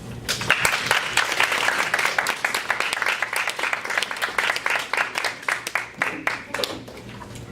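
Small audience clapping and applauding, starting just after the start and thinning out near the end.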